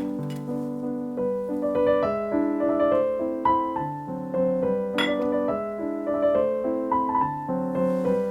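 Background piano music, a gentle melody over a moving bass line, with a single brief click about five seconds in.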